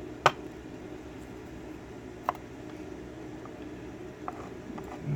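Small metal lock parts being handled during disassembly: a sharp click about a third of a second in, another about two seconds later, and a few faint ticks, over a faint steady hum.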